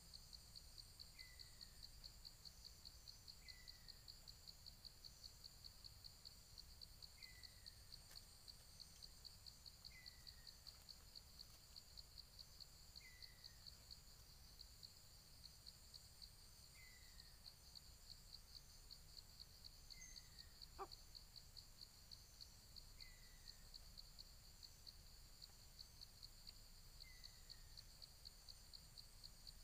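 Faint, steady, fast-pulsing insect trill, with a short falling note repeated every two to three seconds and a single sharp click about two-thirds of the way through.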